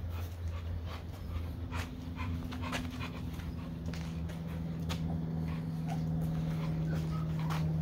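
American Bully dog panting, with short sharp breaths and scuffs. A steady low hum runs underneath and rises in pitch about halfway through.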